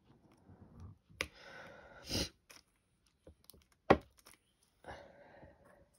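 Diamond painting drill pen picking up resin drills and pressing them onto the sticky canvas: a series of small clicks and scrapes, with a sharp click about four seconds in.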